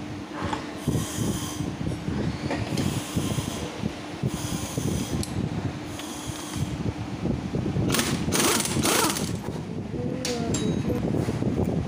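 Impact wrench run in several short bursts, undoing the clutch nut and pressure-plate bolts of a Hero Glamour BS4 motorcycle engine. The longest and loudest burst comes about eight seconds in, over steady workshop noise.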